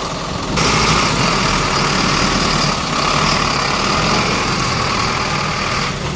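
Box truck's engine running as the truck manoeuvres, a steady mechanical noise that gets louder about half a second in.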